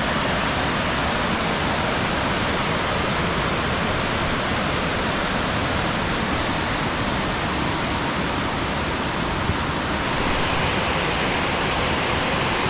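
A multi-tiered cascading waterfall pouring, a steady, even rush of falling water.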